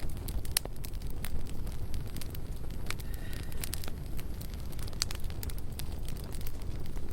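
Campfire burning: a steady low rumble from the flames with irregular sharp crackles and pops.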